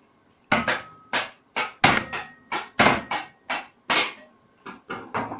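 Blacksmith's hammer striking metal on an anvil, as when forging horseshoes: about fifteen sharp blows at roughly three a second, some with a faint metallic ring, softer near the end.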